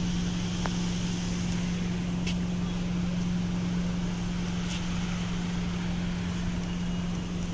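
A steady low machine hum over constant background noise, unchanging throughout, with a few faint clicks on top.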